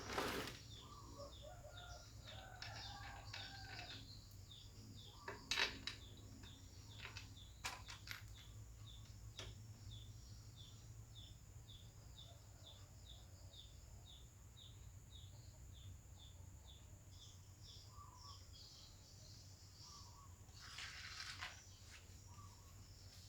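A bird calling faintly in a long, even series of short high chirps, about two a second. A few sharp clicks fall in the first half.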